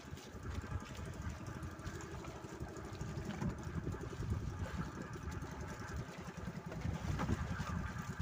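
Small boat engine running steadily at idle, a low rapid pulsing rumble.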